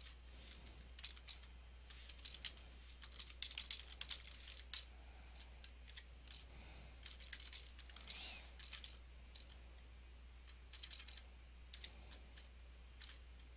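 Faint typing on a computer keyboard: irregular keystrokes in short runs with brief pauses between.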